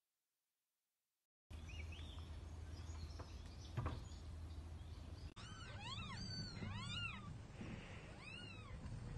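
Silent at first, then a low steady hum with one sharp click. After a sudden cut about five seconds in, young kittens mewing: many short, high-pitched rising-and-falling mews, several a second.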